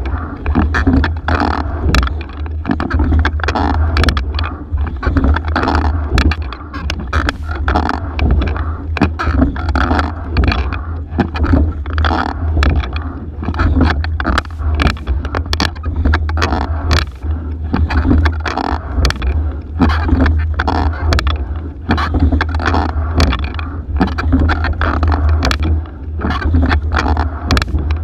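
Single racing scull being rowed at a steady pace, heard from inside the boat: oars clunking in their oarlocks and water rushing along the hull, surging with each stroke about every two seconds, over a steady low rumble.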